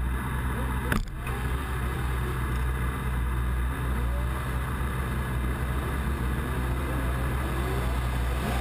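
Yamaha R6 inline-four idling steadily on the starting grid, with a field of 600cc sport bikes idling around it and faint revs rising and falling as other riders blip their throttles. A single sharp click about a second in.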